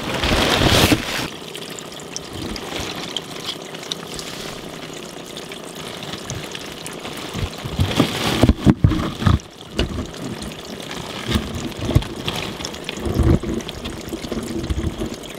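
Water leaking through the floor at a tile shower pan's drain, pouring and dripping steadily into the crawl space below while the shower runs; the leak is the sign of a torn or missing waterproofing layer under the pan. A few sharp knocks come in the first second and again around eight to nine seconds in.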